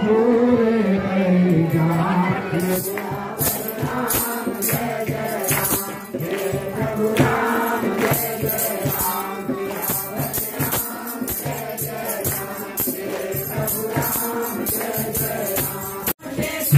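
Devotional hymn sung by a group, with a steady jingling beat from shaken hand percussion. The sound cuts out for a moment near the end.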